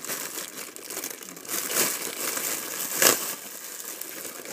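Clear plastic packaging bag crinkling and rustling as it is pulled off a digging tool, with louder crackles about two and three seconds in.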